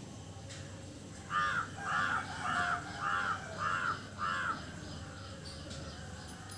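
A crow cawing six times in quick succession, starting about a second in, each caw short and harsh, about two a second.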